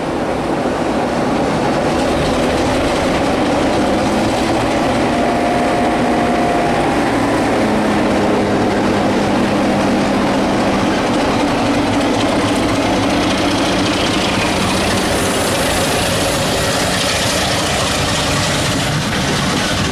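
Class 33 diesel locomotive's Sulzer engine working hard as it pulls a train away, with a steady engine note. In the last few seconds the coaches' wheels clatter over the rails.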